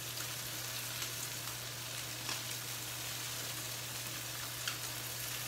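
Salmon fillets and breaded chicken frying in oil in skillets: a steady sizzle with a few scattered small pops and crackles, over a steady low hum.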